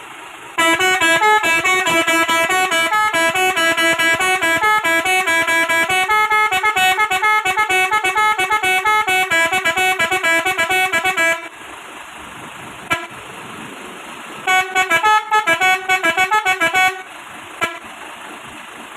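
Seventeen-tone telolet horn module on a Hino truck playing a fast multi-note tune, its pitch stepping quickly from note to note for about eleven seconds. After a pause with a single short toot, it plays a shorter run of quick notes, then one more short toot.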